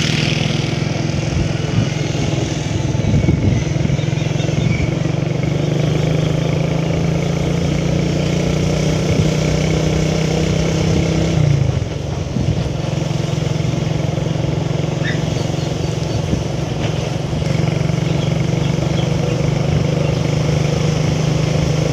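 Small vehicle engine running steadily, heard from aboard while riding along a road. Its note drops briefly about halfway through, then picks up again.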